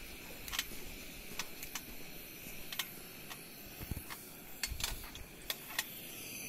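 Footsteps and handling noise while walking on the soft marl floor of a cave: scattered light clicks and scuffs at an irregular pace, with a couple of duller thuds near the middle, over a faint steady hiss.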